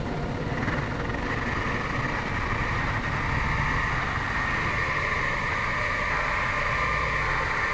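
Soma Labs Lyra-8 analog drone synthesizer sounding a steady, noisy drone, with held high tones over a dense low rumble, washed in shimmer reverb.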